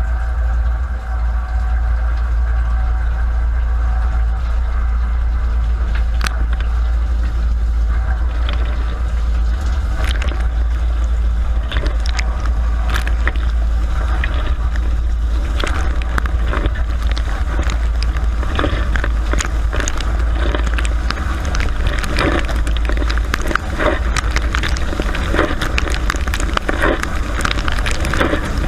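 Dishwasher running, heard from inside the tub: a steady low hum from the wash pump under the spatter of water jets hitting dishes and the camera. The spattering grows denser and louder after the first several seconds.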